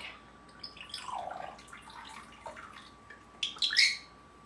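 Short parrot calls. About a second in there is a curving whistle that dips and rises, and near the end a louder burst of high, rising chirps.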